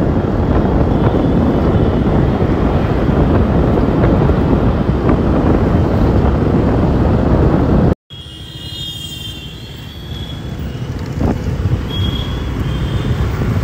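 Wind rushing over the microphone and road noise while riding a scooter at speed, cut off suddenly about eight seconds in. After that, quieter street traffic with a few short high-pitched beeps.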